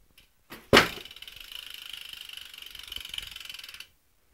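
A sharp knock, then about three seconds of fast, even ratcheting clicks from a BMX bike's freewheeling cassette hub, cutting off suddenly.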